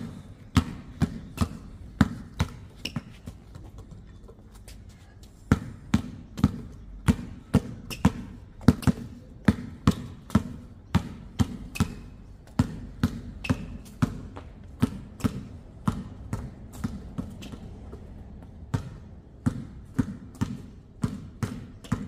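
A basketball being dribbled, bouncing hard on the court about twice a second. The dribbling pauses for about two seconds a few seconds in, and briefly again later.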